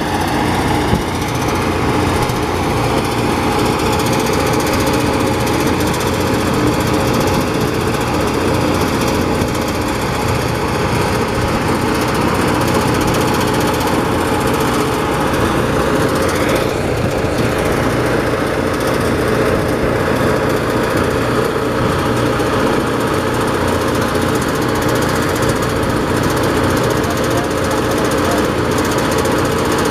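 Engine-driven power rice thresher running steadily under load, its small engine driving the threshing drum as rice stalks are fed through.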